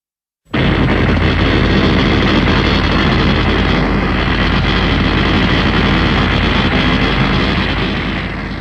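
A loud, harsh, dense monster sound effect that starts abruptly after half a second of silence, holds steady, and begins to fade near the end.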